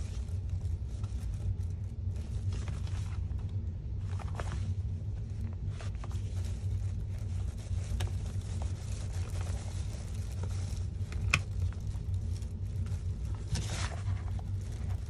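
Light clicks and handling noises of metal binder rings being snapped closed through a resin notebook cover, with one sharp click about three-quarters of the way through, over a steady low hum.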